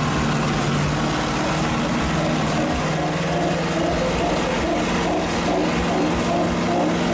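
A lifted pickup truck's engine held at high revs under heavy load while pulling in a truck tug-of-war. The engine note is steady and rises slightly about three seconds in.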